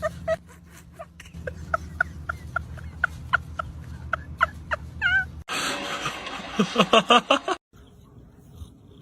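An animal's short calls repeated about three times a second over a steady low hum, then a sudden switch to a loud noisy stretch with several strong pulses, and then a sudden drop to a much quieter sound.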